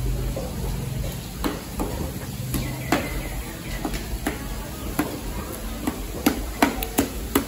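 Knife chopping fish on a thick round wooden chopping block: sharp, irregular chops that come faster and louder over the last couple of seconds.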